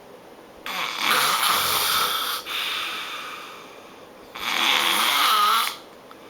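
Loud snoring of a person asleep after heavy drinking: two snores, the first about three seconds long with a brief catch in the middle and fading away, the second shorter and ending sharply.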